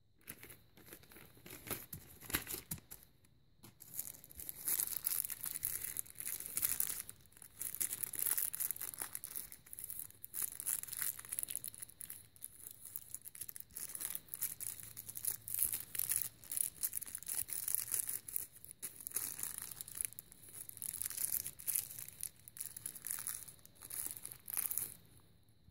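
Thin clear plastic wrapping crinkling and tearing as it is peeled off small toy garbage carts, in irregular crackling bursts that start about a second in and stop just before the end.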